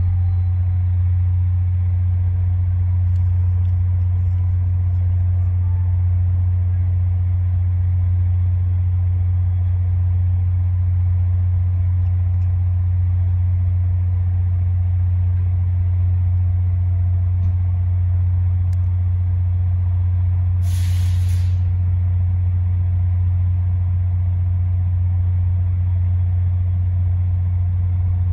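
Diesel locomotive idling at a standstill: a steady low drone that holds the same level throughout, with a short hiss of air about two-thirds of the way through.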